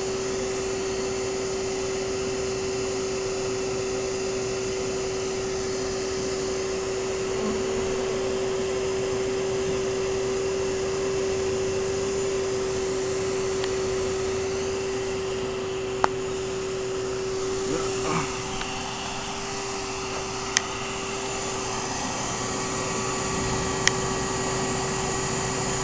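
Steady motor hum with one strong, unchanging pitch: a bee vacuum running during a honeybee cutout. Three sharp clicks come in the second half.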